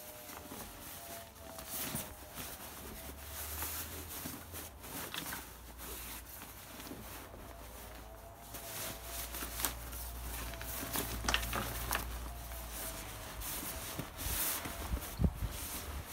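Nylon rucksack being handled and packed: fabric rustling, with scattered clicks and knocks from straps and buckles. A faint low rumble runs underneath, stronger from about halfway.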